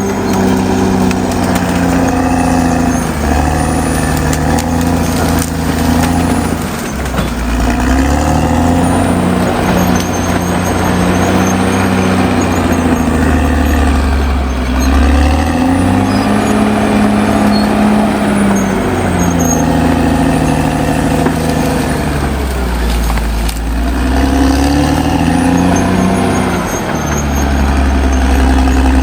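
Caterpillar D6R XL bulldozer's diesel engine running under working load, its pitch rising and falling every few seconds as the engine speed changes.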